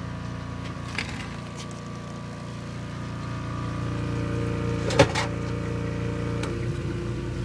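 Steady hum of a 1940s General Electric refrigerator running, its compressor on with cooling fans alongside. A light click about a second in and a sharper click about five seconds in.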